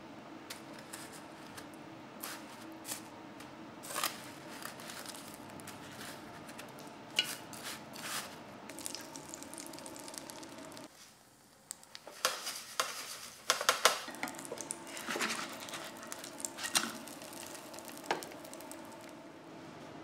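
Cooking sounds over a steady low hum: scattered soft clicks and taps, then, after a short drop about eleven seconds in, several seconds of dense crackling and clicking as cornflake-coated French toast fries in oil in a pan and is handled with bamboo tongs.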